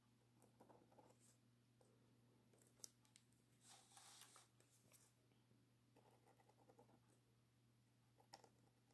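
Faint scratching of a pen nib on paper as calligraphy letters are drawn, in short strokes with a few light clicks, over a steady low hum.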